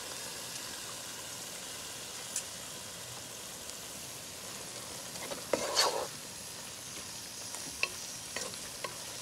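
Onion, tomato and eggplant sizzling steadily in oil in a frying pan while dried anchovies are stirred in with a wooden spatula, which gives one louder scrape a little past the middle and a few light knocks on the pan near the end.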